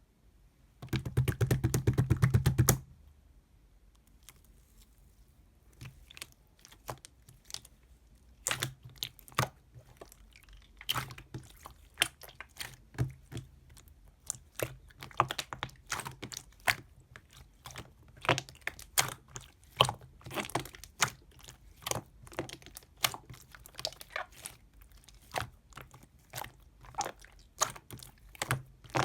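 A loud crackling burst lasting about two seconds near the start, then irregular sharp crunches and clicks, a few a second, close to the microphone.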